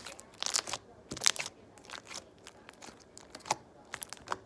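Pink glossy slime being stretched and folded by hand, giving off irregular sharp clicks and crackles.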